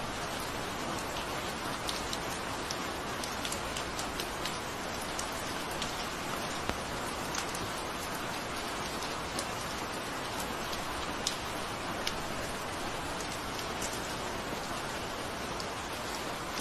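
Steady rain falling, an even hiss with scattered sharp drop ticks hitting a surface.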